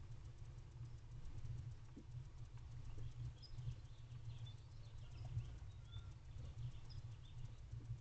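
Low steady rumble with faint, short, high-pitched bird chirps scattered from about three to seven seconds in.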